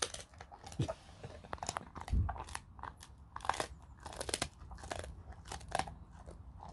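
Alaskan Malamute chewing a chicken foot treat: an irregular run of crisp crunches as the bone is bitten through, with a dull bump about two seconds in.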